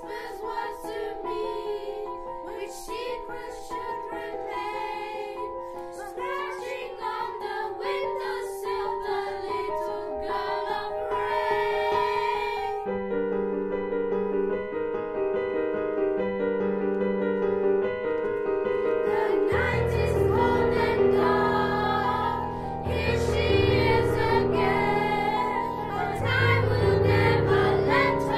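Children's choir singing with piano accompaniment. About halfway through the voices stop for a short piano passage, then the singing comes back in over deeper piano notes.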